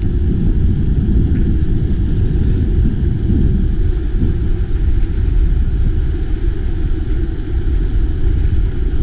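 Wind buffeting the microphone during a mountain-bike ride: a loud, steady low rumble with no clear pitch.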